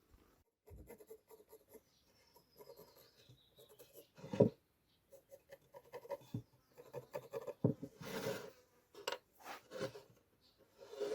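Hand work on a workpiece: irregular short scraping and rubbing strokes, with a few light knocks, the sharpest about four seconds in.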